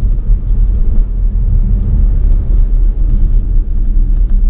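Steady low rumble of road and engine noise heard inside the cabin of a moving car.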